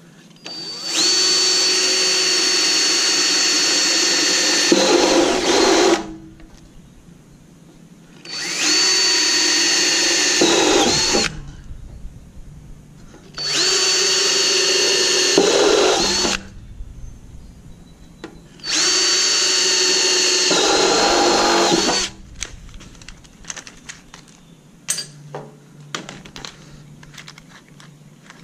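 Cordless drill with a center drill bit boring holes in a steel ammo can: four runs of a few seconds each, the motor's steady whine dipping and the cutting getting rougher at the end of each run as the bit bites through. After the last run, light clicks and rattles as the drill's chuck is handled.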